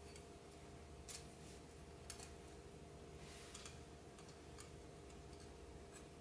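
Faint clicks and taps of the thin stainless-steel plates of a Tetra Drip folding coffee dripper as they are handled and slotted together by hand: a few separate clicks over a low steady room hum.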